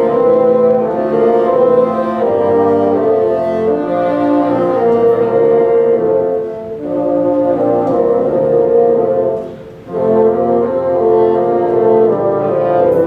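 Bassoon ensemble playing several sustained parts together in harmony, with brief breaks between phrases about 7 and 10 seconds in.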